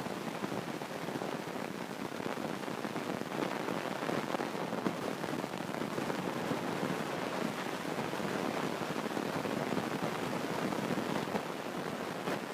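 Steady rushing noise with no clear tone or rhythm.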